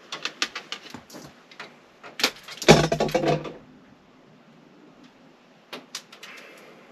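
Hands working inside a residential circuit breaker panel: a quick series of small metal clicks and rattles as a breaker and its wire are handled and fitted, then a louder clunk and rustle about two and a half seconds in, and a couple of further clicks near the end.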